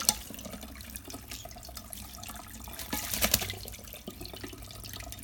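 Sink tap running steadily, with splashes right at the start and again about three seconds in as a small pet bird bathes under the stream.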